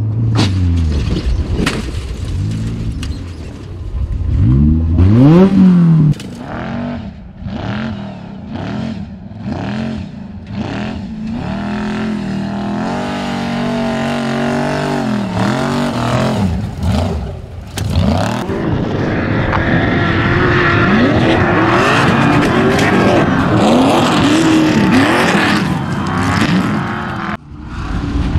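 Off-road race trucks and a desert race buggy running hard on dirt, their engines revving up and down with the throttle. The loudest is a sharply rising rev about five seconds in.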